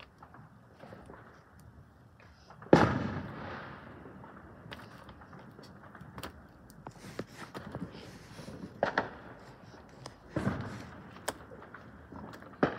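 Firework explosions: a loud bang about three seconds in with an echoing, rumbling tail, then more bangs around nine and ten and a half seconds and one near the end.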